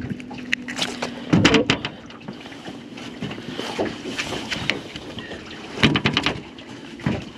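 Clusters of sharp knocks and rattles, about a second in and again near six seconds, over a steady wind noise on the microphone.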